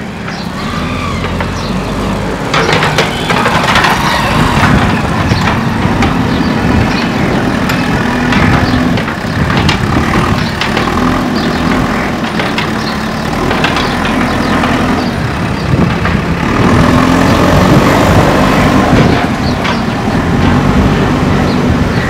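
JCB 3DX backhoe loader's diesel engine running as the machine drives and works its loader bucket, with repeated knocks and clanks. The engine gets louder twice, a few seconds in and again past halfway.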